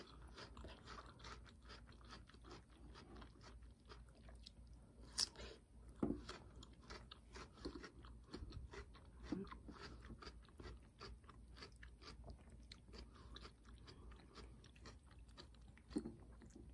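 A cat chewing and licking soft pieces of Korean melon, a quiet run of wet clicks several times a second, with two louder knocks about five and six seconds in.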